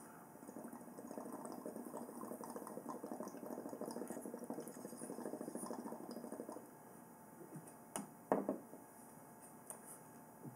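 Water bubbling and gurgling in a glass dab rig as a hit is drawn through it, for about six seconds. A sharp click and a short knock follow near the end.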